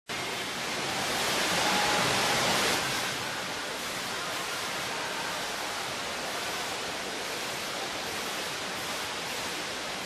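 Water droplets falling from a digital waterfall sign and splashing down, making a steady hiss that is a little louder in the first few seconds.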